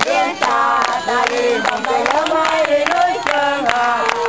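A group of children and young women singing together while clapping their hands in rhythm.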